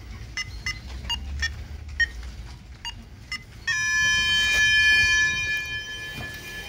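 A run of short electronic beeps at uneven intervals. About three and a half seconds in, a loud, steady, multi-pitched electronic tone starts and holds.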